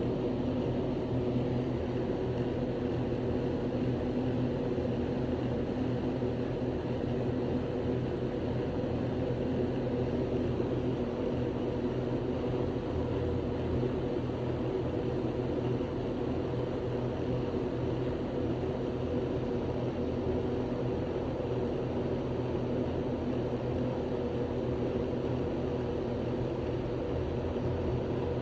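A steady, unchanging mechanical drone with several fixed low tones and no breaks or separate events.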